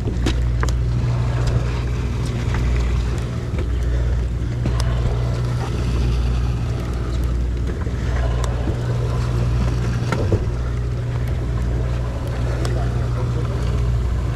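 A sportfishing boat's engine droning steadily at a constant pitch, with scattered small clicks and knocks.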